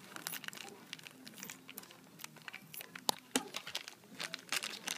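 Thin clear plastic bag crinkling and rustling as it is cut open with scissors and handled, with one sharper click about three seconds in.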